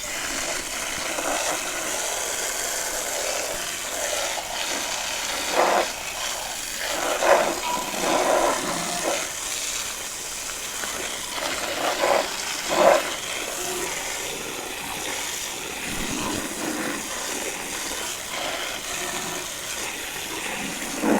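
Garden hose spraying water steadily under a lawnmower deck, washing out the clumped, matted crabgrass clippings that clogged it, with a few louder splashes or knocks.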